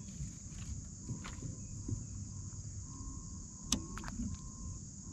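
Steady high chorus of insects, with a low rumble underneath and a few sharp clicks as fishing tackle is handled, the clearest about three and a half seconds in.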